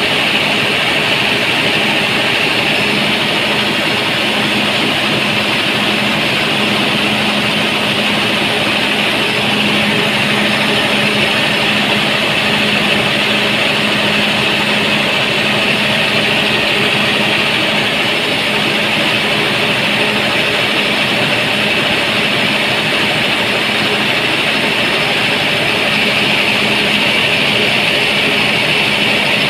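Cummins 6BT inline-six diesel engine running steadily at constant speed, driving a newly fitted belt over its pulleys with the belt tensioner removed.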